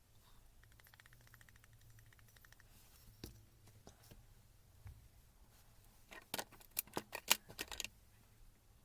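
Workshop handling sounds from tool repair work: a faint, fast, even ticking for about two seconds, one sharp click, then a burst of sharp clicks and clatter from parts and tools near the end.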